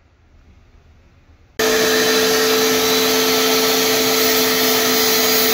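A wet/dry shop vacuum running with a steady, loud rush and a constant hum. It starts abruptly about a second and a half in, after faint room tone.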